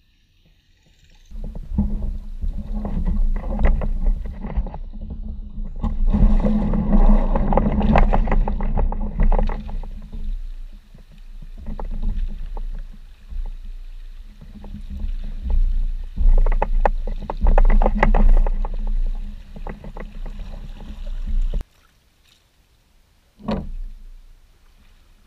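Jackson Kayak Coosa HD's plastic hull under way in shallow creek water, heard through a camera mounted on the kayak: a loud rumble full of clicks, knocks and paddle splashes that swells and eases several times, then cuts off suddenly. One short knock follows a couple of seconds later.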